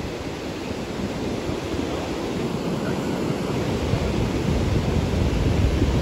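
Ocean surf washing onto the beach, with wind buffeting the microphone; the low rumble grows louder over the last couple of seconds.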